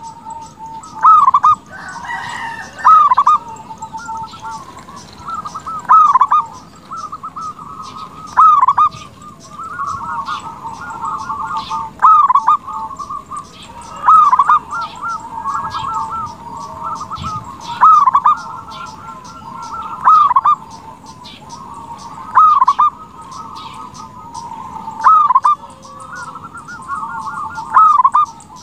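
Zebra dove (perkutut) cooing over and over: a loud, rolling phrase every two to three seconds, with softer cooing at the same pitch in between. This is the bird in full song ('gacor').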